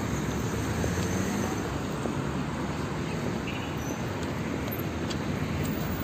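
Steady city road traffic noise from cars passing on the street.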